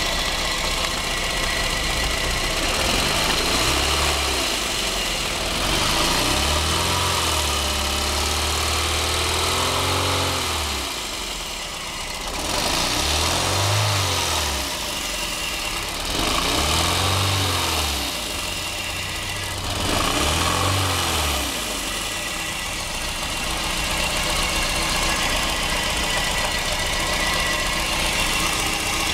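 Misfiring car engine running roughly, revved five times with the second rev held for about four seconds, then settling back to a rough idle. The uneven running is the sign of a misfire, which comes with engine vibration.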